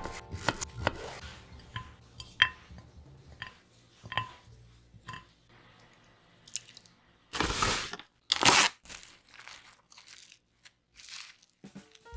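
A kitchen knife chopping a sweet potato on a wooden cutting board, a quick run of knocks, followed by a few light clinks. Later come two loud rustles of plastic wrap being pulled off the roll and torn to cover a glass dish.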